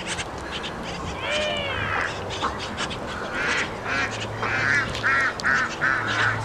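Domestic ducks quacking on the water: one drawn-out call about a second in, then a run of about half a dozen short quacks in quick succession in the second half.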